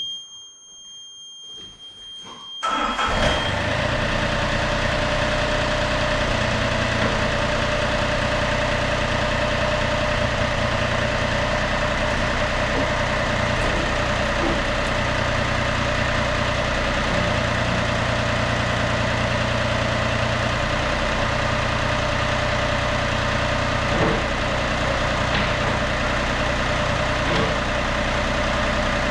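Yanmar B37-1 mini excavator: a high warning beep sounds at key-on, then the diesel engine starts suddenly about three seconds in and settles into a steady idle. This is the first start after the hydraulic filter and tank strainer were replaced.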